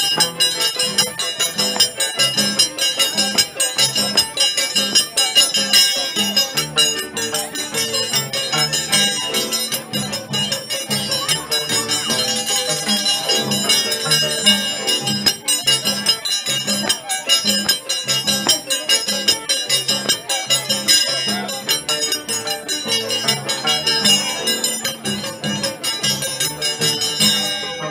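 Live Peruvian folk band music (huayno/huaylarsh style) playing with a steady, even beat.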